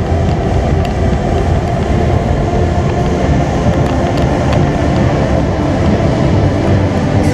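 Roller coaster car running along its steel track, a steady loud rolling rumble with wheel clatter, heard from on board the car.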